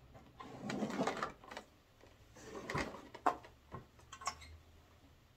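Clear plastic blister packaging rustling and crinkling as it is handled, with a few sharp plastic clicks and knocks between about three and four and a half seconds in.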